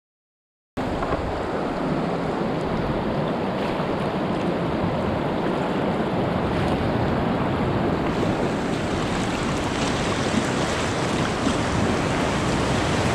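Whitewater rapids rushing steadily around a kayak, mixed with wind on the microphone. The sound cuts in abruptly about a second in.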